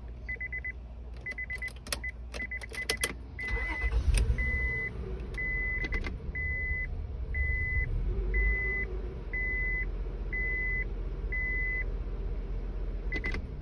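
Acura TL dashboard warning chime beeping, with clicks of the ignition key being turned; about three and a half seconds in the engine cranks and starts, then idles while the chime beeps steadily about once a second.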